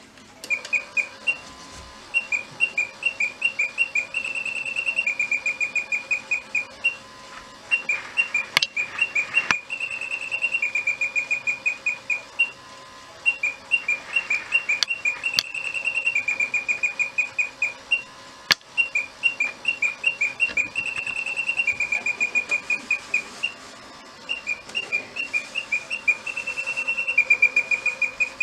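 Impex 7RY001 animated bird clock playing its electronic birdsong: a phrase of quick whistled chirps and trills that repeats about every six seconds. A few sharp clicks sound partway through.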